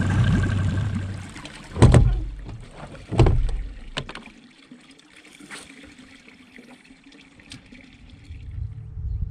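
A boat motor's steady hum fades out about a second in. Two heavy thumps against the boat follow, a little over a second apart, then a lighter knock. A low hum comes back near the end.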